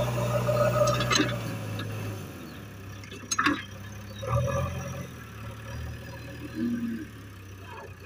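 JCB backhoe loader's diesel engine running while the front bucket works loose soil, its revs dropping about two seconds in. A few short sharp knocks come over it.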